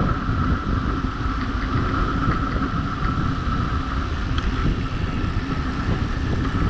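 Wind buffeting the microphone of a rider speeding downhill, a steady rushing rumble with a constant high-pitched whine over it.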